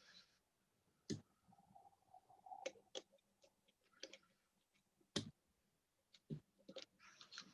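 Faint, irregular clicks and light scraping of a lock pick and tension wrench working the pins of a Dusty 3.1 pin-tumbler challenge lock, with the two loudest clicks a little after one second and about five seconds in.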